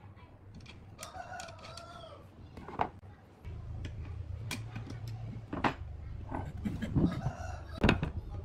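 A rooster crows about a second in, with a shorter call near the end. Sharp knocks and clicks come from wooden wheels and a threaded steel axle rod being handled on a wooden table.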